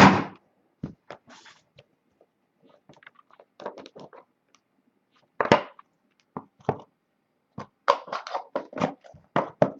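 Trading card box and its packaging being handled and opened on a table: scattered clicks, taps and crinkles, with a sharp thump at the start and a quicker run of clicks near the end.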